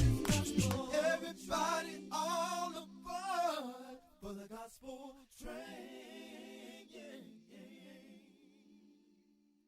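Gospel vocal group singing over a steady held low note, the song fading out gradually over the last few seconds.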